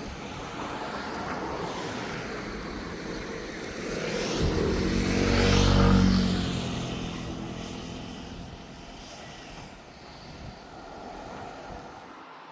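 Airliner passing close by, its engine sound swelling to a peak about halfway through and then fading, the pitch dropping as it goes past.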